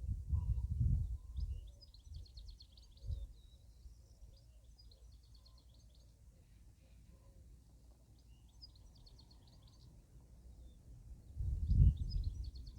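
Wind gusting against the microphone, with low buffeting at the start that dies down and returns near the end. A small bird sings a rapid high trill several times over it.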